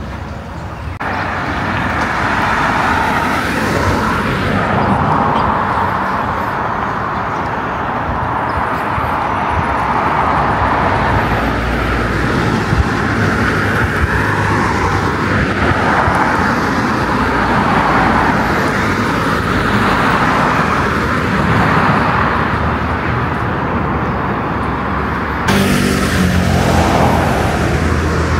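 Road traffic: a steady wash of passing cars, with abrupt shifts in the sound about a second in and again near the end.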